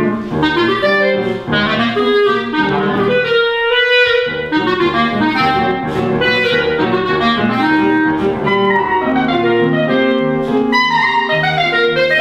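Clarinet playing a lively melody with a held note about four seconds in and quick rising runs near the end, over a lower accompaniment.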